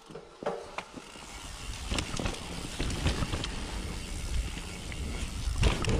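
Downhill mountain bike rolling down a trail and picking up speed: tyre rumble and wind on the camera's microphone grow louder, with scattered sharp clacks as the bike runs over rough ground, and a louder surge near the end.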